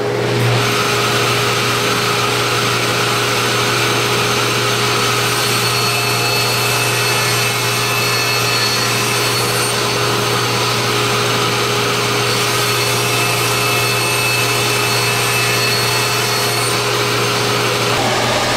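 Power saw running steadily at full speed while cutting a plywood panel, with a constant low motor hum.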